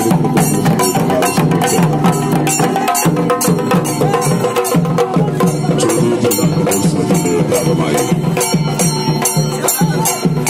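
Kerala chenda drums beating a fast, steady festival rhythm.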